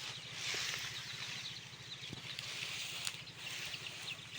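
Week-old chicks cheeping softly as they forage in dust, many short high peeps scattered through, with a few faint ticks. Under them runs a steady low hum with a fast flutter, like a distant engine.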